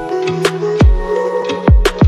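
Background music with a steady beat: deep drum hits and sharp hits repeating over sustained tones.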